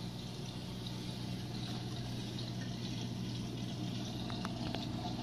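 Saltwater reef aquarium running: a steady pump hum under water trickling through the tank's circulation. A couple of faint ticks come about four and a half seconds in.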